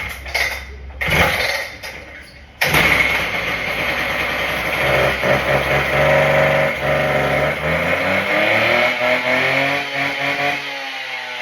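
Husqvarna K770 concrete saw's two-stroke engine being pull-started on choke: two quick pulls on the starter rope, then it catches about two and a half seconds in and keeps running, its speed rising toward the end.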